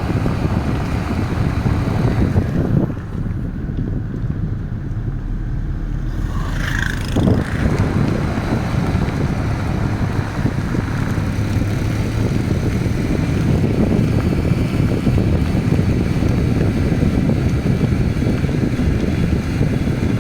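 2000 Honda Civic running: a steady low rumble with wind noise on the microphone, and a brief higher-pitched sound about seven seconds in.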